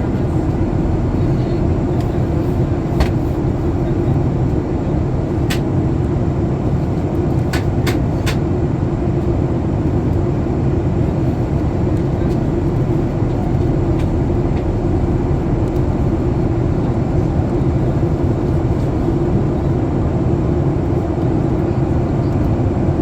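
Steady cabin noise of a Boeing 737 MAX 8 in descent: an even engine and airflow rumble heard from inside the cabin, with a few faint clicks.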